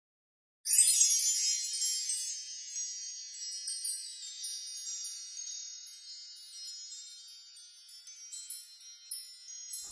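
Wind chimes tinkling in a high, glassy shimmer. It starts after a brief moment of silence, slowly fades away, and a few fresh tinkles come near the end.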